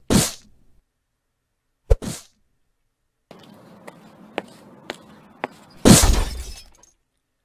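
Stock fight-and-destruction sound effects. There is a sharp hit with a short crash after it, and another about two seconds later. Then comes a low rumble with three knocks, and a loud crash about six seconds in.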